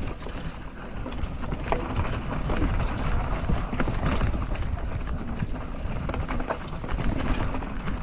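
Mountain bike riding over a rough dirt trail: a steady rumble of tyres with irregular knocks and clatters from the bike as it goes over bumps.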